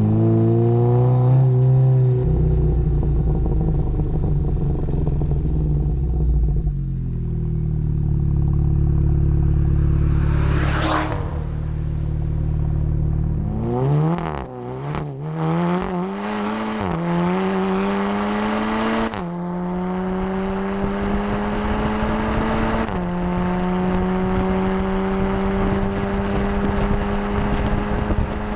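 Seat Leon Cupra's turbocharged 2.0-litre four-cylinder engine through a Milltek sport exhaust, revving hard and loud. The pitch climbs and then drops sharply at each of several quick gearshifts, which come more often in the second half.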